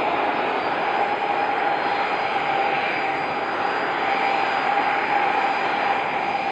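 Airbus A320-216's CFM56-5B jet engines running: a steady rush of engine noise with a held whine underneath.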